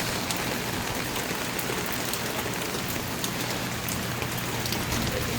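Heavy rain pouring down steadily, with many individual drops pattering sharply on surfaces close by.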